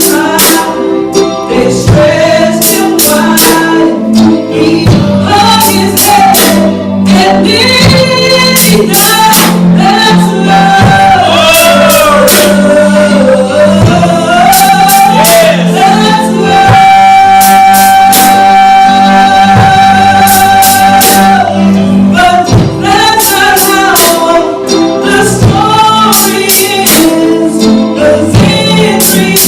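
Congregational worship song with a band: voices singing a slow melody over a steady chord and a beat, with one long held note about two-thirds of the way through.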